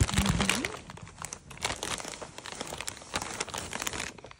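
A plastic snack bag of popcorn crinkling as it is handled: a dense run of crackles that stops shortly before the end.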